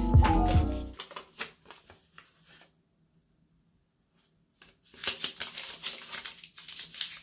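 Paper sticky note handled with a few soft rustles, then crumpled in the hand: a couple of seconds of dense crinkling starting about five seconds in. Background music fades out in the first second.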